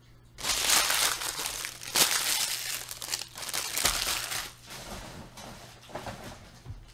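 Foil trading-card pack wrappers crumpled and gathered up by hand: a loud crinkling starts about half a second in and runs for about four seconds, then gives way to lighter rustles and a soft knock.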